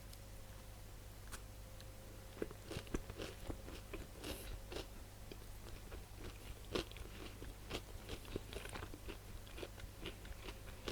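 A person eating pizza, biting and chewing with irregular crisp crunches that start about two seconds in, over a faint steady low hum.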